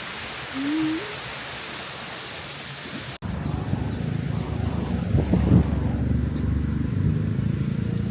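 Steady rush of stream water with one short hum of a voice, then an abrupt cut about three seconds in to a louder, steady low rumble of road traffic.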